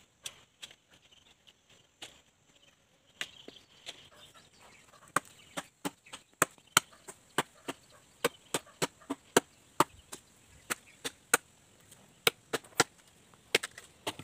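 Machete chopping fallen tree branches: sharp blade strikes into wood, a few scattered ones at first, then a steady run of about two a second from about five seconds in.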